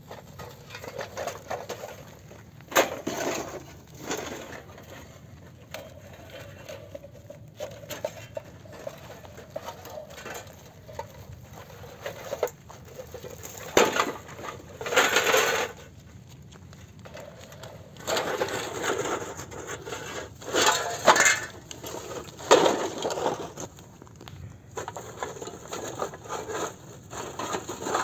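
Objects being handled: irregular knocks and clinks with short bursts of scraping or crunching, louder and more frequent in the second half.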